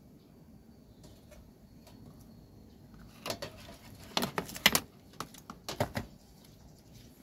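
Plastic parts of an induction-heating rice cooker being handled during reassembly. From about three seconds in there are several quick runs of clicks and clatter, lasting about three seconds.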